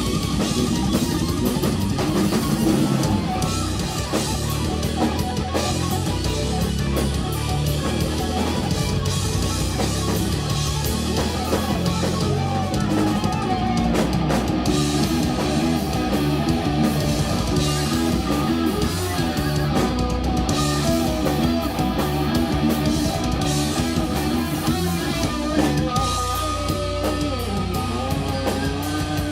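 A live instrumental rock trio playing: electric guitar over bass guitar and drum kit, continuous and steady in loudness.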